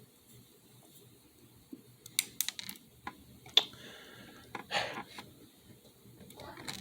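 Small, sharp clicks and taps from tiny screws, parts and hand tools being handled during fiddly scale RC assembly, clustered between about two and five seconds in, with a short rustle near five seconds.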